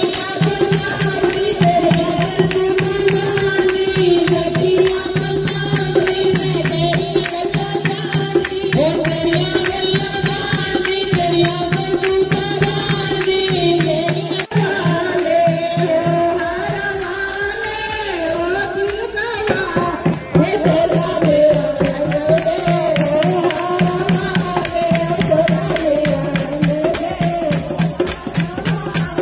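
A group of women singing a Hindu devotional bhajan, led into a microphone, with steady rhythmic hand-clapping keeping the beat.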